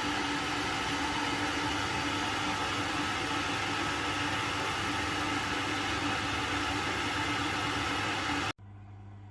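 Steady whirring machine noise with a constant hum, which cuts off abruptly near the end, leaving a quieter low hum.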